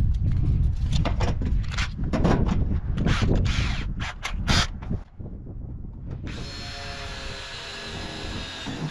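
Knocks and a heavy rumble of handling on the metal roof for about the first five seconds. Then, about six seconds in, a cordless drill runs steadily for nearly three seconds, driving a screw through the ribbed metal roofing sheet.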